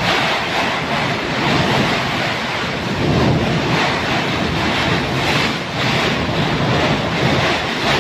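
Typhoon-force wind rushing and buffeting the microphone, a loud noise that swells and eases in gusts.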